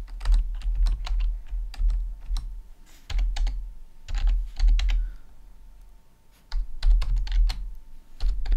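Typing on a computer keyboard: irregular runs of key clicks, each with a dull thud beneath it, broken by a pause of about a second past the middle.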